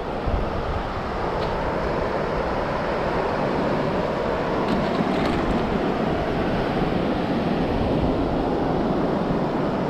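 Steady ocean surf washing on the beach, with wind buffeting the microphone.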